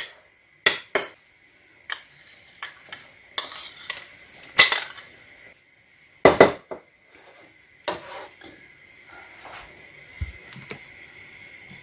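Metal spoon clinking and scraping against a ceramic bowl as boiled potatoes are mashed: a string of separate clinks, the loudest about six seconds in.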